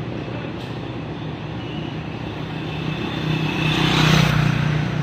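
Diesel tour-bus engine running with a steady low hum, swelling into a louder rush of noise about four seconds in as a vehicle moves past.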